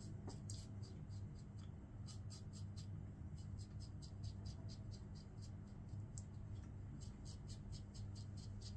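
Safety razor scraping through several days' stubble on a lathered cheek: a faint, quick run of crackling ticks with each stroke.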